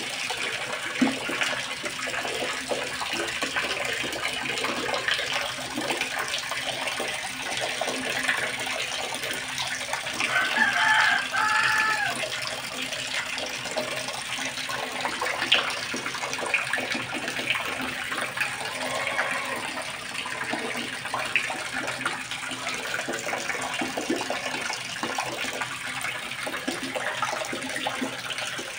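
Water rushing and splashing steadily into a concrete fish pond during a water change. A bird calls briefly about ten seconds in, in two arching notes.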